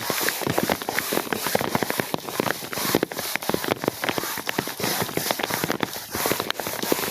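Rain falling close by, large drops landing as dense, irregular sharp ticks over a steady hiss.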